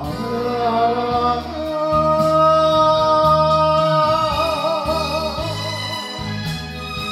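A man singing an enka ballad into a karaoke microphone over its backing track, holding one long note for about three seconds that swells into a wide vibrato toward its end.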